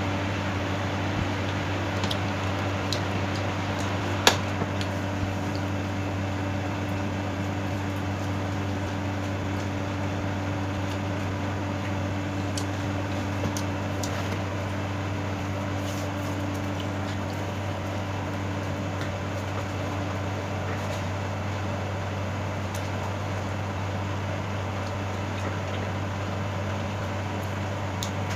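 Steady low electric hum of a running room appliance such as a fan or air conditioner. Over it come a few scattered small clicks and taps from eating grilled pork belly by hand at the plate, the sharpest about four seconds in.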